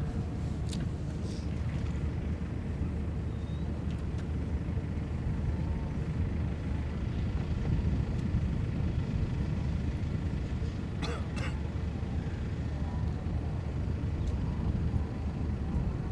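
Steady low rumble of distant harbour and shipping noise across open water, with a brief cluster of faint high sounds about eleven seconds in.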